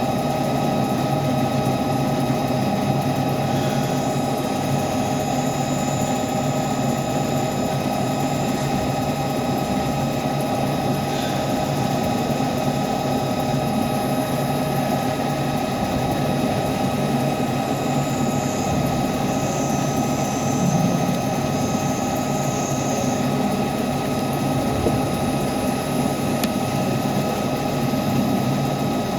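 CNC lathe running through a machining cycle on a pinion: a steady whine of several fixed pitches from the spindle drive over a constant mechanical hum, with faint higher squeals now and then.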